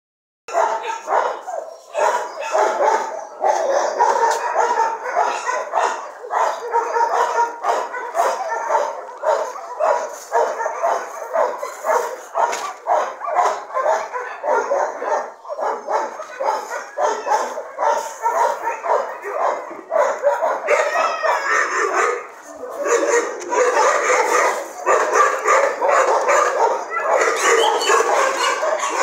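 Many dogs barking at once: a dense, continuous chorus of overlapping barks, with a brief lull about three-quarters of the way through.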